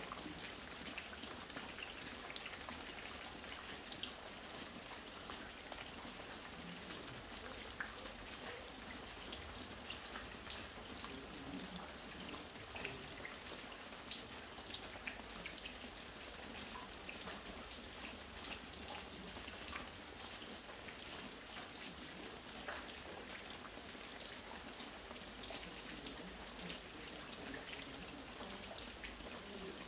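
Light rain falling steadily, with many individual drops ticking sharply against a soft hiss.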